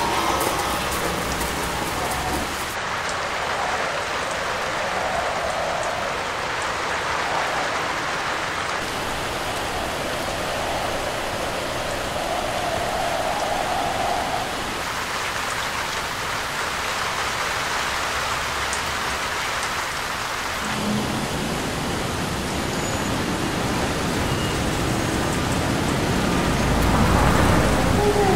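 Steady rainfall hissing. About two-thirds of the way through, a low rumble joins and builds toward the end.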